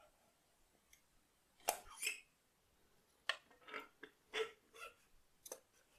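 Second piston rings being pushed down into the cylinder bores of a Toyota 5E-FE engine block with a piston: several short metallic clicks and scrapes, spaced irregularly, with quiet between them.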